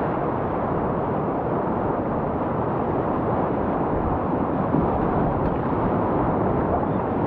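Fast water of a swollen river rapid rushing steadily and loudly.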